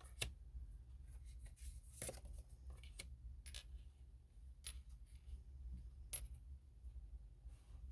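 Tarot cards being handled on a table: faint, scattered light clicks and snaps, about six over several seconds, over a low steady hum.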